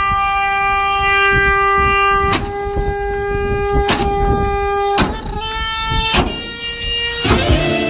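Car horn sounding in a long, steady blast. About five seconds in it shifts to a slightly higher note, and a few sharp clicks cut across it.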